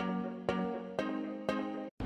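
Electronic background music: a synth chord struck about twice a second, each note fading before the next, cutting off abruptly at the very end.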